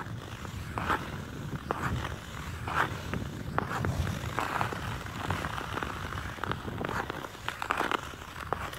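Ice skate blades scraping and gliding over thin natural black ice, a scraping push roughly every second, with small crackles in between.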